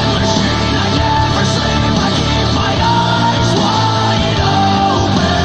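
Rock song with singing and heavy bass, played back loud through a speaker under sound test.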